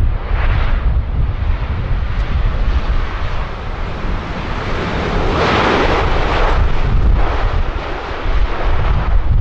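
Jet airliner on landing approach, its engine roar swelling to a peak about five to six seconds in and then easing, over a heavy low rumble of wind buffeting the microphone.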